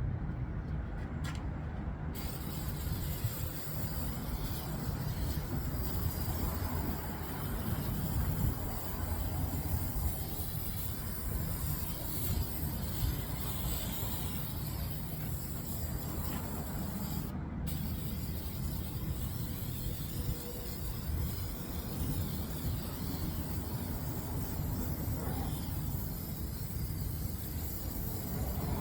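Aerosol rust-protector spray hissing into an empty truck battery box, with a steady low rumble underneath.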